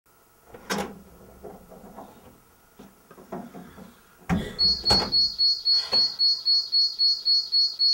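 Handling clicks and knocks, then a sharp click about four seconds in, after which an electronic security alarm siren starts up: a high-pitched rising sweep repeated about three and a half times a second over a steady tone.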